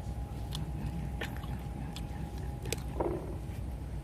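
A steady low hum with a faint high tone, a few light clicks, and a short vocal sound about three seconds in.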